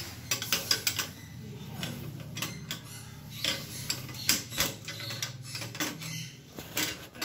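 Water-pump pliers clicking and scraping on the chrome nut of a wall mixer leg as it is gripped and tightened to stop a leak: a string of irregular sharp metal clicks over a steady low hum.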